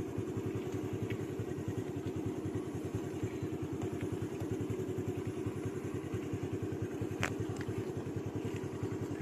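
Engine idling steadily with a rapid, even putter, with one short sharp click about seven seconds in.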